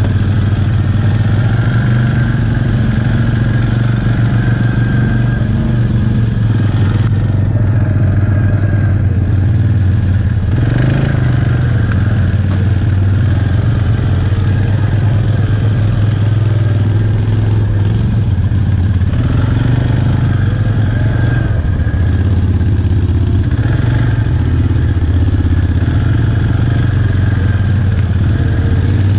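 ATV engine running at a steady trail-riding pace, its low note shifting a little as the throttle is eased on and off.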